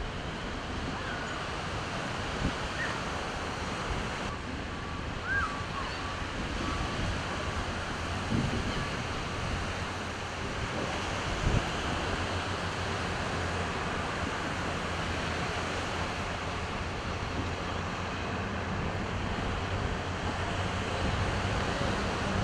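Steady rush of surf and gushing water, with the low drone of bulldozer diesel engines running underneath. A short row of faint beeps comes about five seconds in, and there are a few light knocks.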